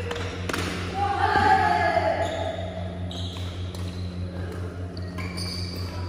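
Steady low hum of an indoor sports hall, with a voice calling out for about a second and a half starting about a second in, and a few light knocks from the badminton court.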